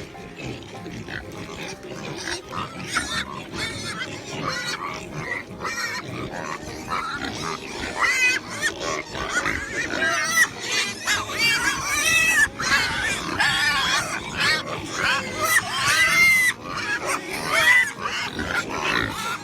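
Several pigs squealing and grunting, a rapid run of short pitched calls that grows denser and louder partway through.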